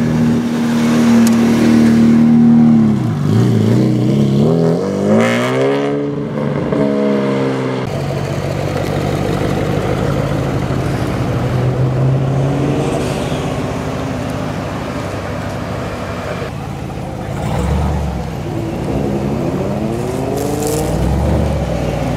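Custom-built roadster's Ferrari 550 Maranello V12 engine pulling away: a steady drone, a brief dip, then revs rising twice through the gears. About eight seconds in the sound changes to other car engines running, with another rise in revs near the end.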